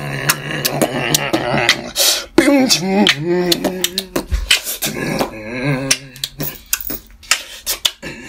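Beatboxing: quick mouth-made drum clicks, about four a second, over a low hum, with a wavering hummed or sung tone entering about two seconds in.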